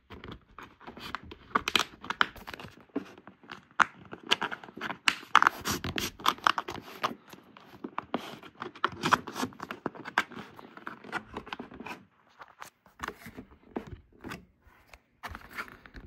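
A thin plastic card scraping and prying along the seam of an LG UltraFine 5K monitor's plastic back cover, with irregular scratching and clicking as the cover flexes against its hooks. It goes quieter and sparser for a few seconds past the middle.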